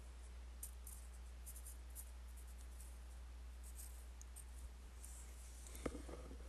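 Pencil writing on paper: a run of faint, short scratching strokes, then a light knock near the end.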